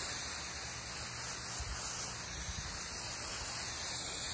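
Water spray from a garden hose nozzle hitting grass and wet soil, a steady, even rush of noise.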